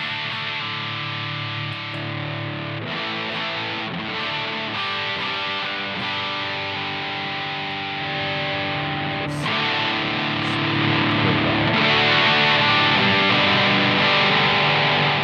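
Gibson Les Paul electric guitar strummed in sustained chords through a Simplifier MK2 amp-simulator pedal on its Fender-style 'USA' amp voicing, slightly overdriven. The sound grows louder and brighter about eight seconds in and again near twelve seconds.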